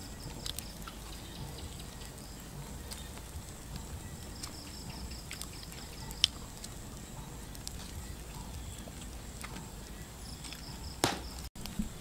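Open wood campfire crackling with scattered sharp pops over a low rumble, while night insects chirp in quick pulsed trains that stop and start, over a steady high insect drone. A single duller knock comes near the end.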